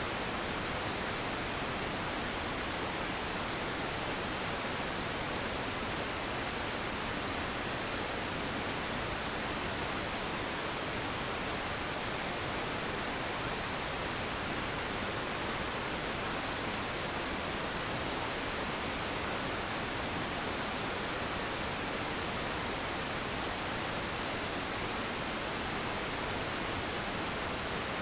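Steady, even hiss of white-style rushing noise, the waterfall ambience with no changes, bird calls or other events.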